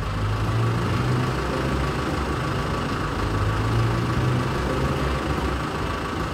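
Traffic sound effect of motor vehicle engines running steadily: an even low engine hum over a wash of road noise.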